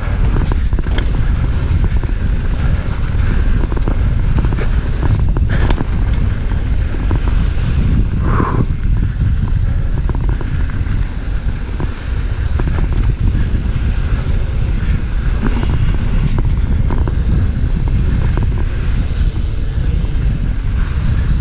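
Wind buffeting the microphone of a mountain biker's action camera during a fast descent on dirt singletrack. Underneath are tyre rumble and the bike rattling and clicking over the ground, with a short squeak about eight seconds in.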